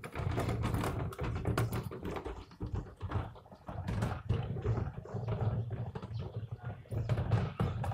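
Excavator demolishing a concrete apartment block at a distance: irregular knocks and clatter of breaking concrete and falling rubble over a low rumble that swells and fades.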